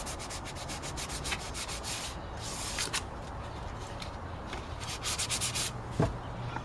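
Sandpaper rubbed back and forth in quick, even strokes, several a second, in runs with short pauses. A single knock near the end.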